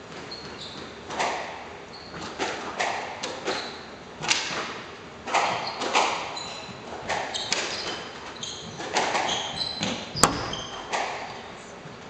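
A squash rally: the ball struck by rackets and smacking off the court walls and floor in irregular repeated impacts, with short high squeaks from court shoes on the wooden floor. One sharp crack about ten seconds in is the loudest hit.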